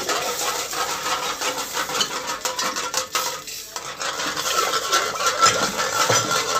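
A metal hand whisk stirring yogurt in a metal pot: continuous quick scraping and clinking against the pot's sides and bottom. The yogurt has just gone into hot oil and is kept moving so it does not split.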